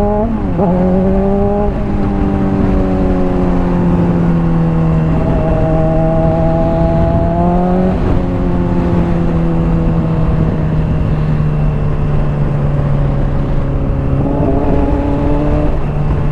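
Honda CBR600RR's inline-four engine running through a Hotbodies Stinger slip-on exhaust while riding. The note climbs and breaks at a gear change just after the start, then holds steady under light throttle and eases off about eight seconds in, with wind noise underneath.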